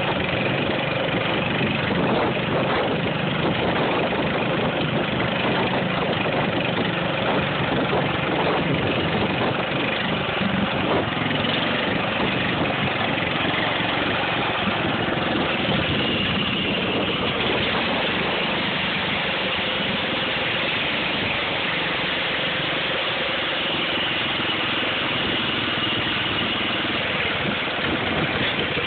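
John Deere garden tractor's small engine running steadily.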